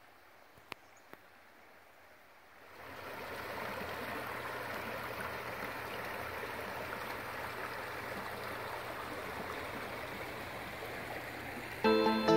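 Shallow creek water running over a gravel riffle: faint at first, then louder and steady from about three seconds in. Music starts just before the end.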